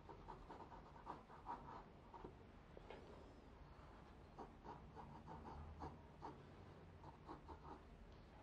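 Faint pencil strokes on drawing paper: short, irregular scratches as graphite is sketched across the sheet.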